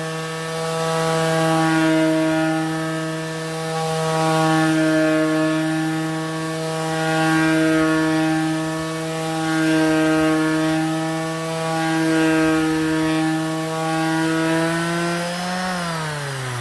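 Bosch GSS 1400 orbital sander running against a wooden surface: a steady motor hum that swells and fades about every two seconds. Near the end the pitch rises briefly, then falls steadily as the motor winds down.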